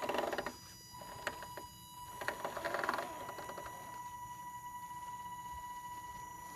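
Axial SCX10 radio-controlled scale crawler climbing loose dirt: a steady, high electric whine from its drive. Two bursts of crunching and clicking come as the tyres grip and slip on gravel, one right at the start and one about two to three seconds in. The whine carries on steadily after them.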